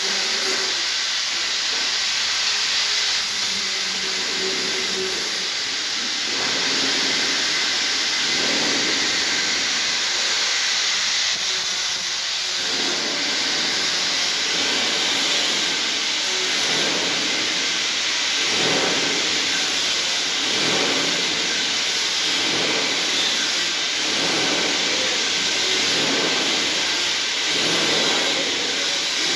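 Stick (shielded metal arc) welding on steel plate: the coated electrode's arc burning steadily as a bead is laid.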